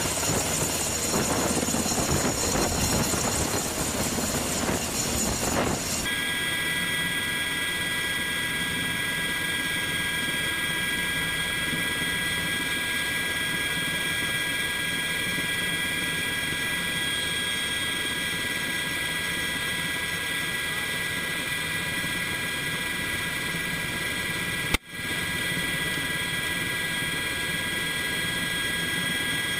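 UH-60 Black Hawk helicopter flying, first a rushing rotor noise, then from about six seconds in the steady high whine heard inside its cabin with the door open. About 25 seconds in, a single sharp click briefly breaks the sound.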